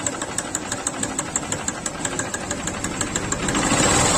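Honda CB Shine's single-cylinder four-stroke engine idling with a fast, even ticking rattle, getting somewhat louder near the end. The noise comes at idle rather than under throttle, and the mechanic puts it down to a worn cam chain tensioner whose spring has failed.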